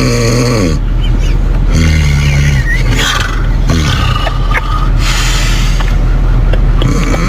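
Loud, rough snoring: long rasping breaths over a low rumble, a few of them carrying a pitched note that falls near the start.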